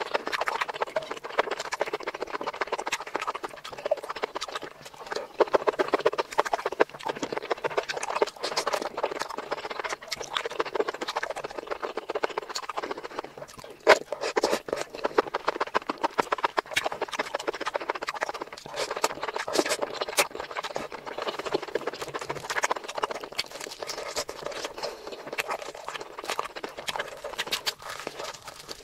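Close-miked eating sounds: chewing and wet lip smacking in a dense, steady run of small clicks, with one sharp louder click about fourteen seconds in.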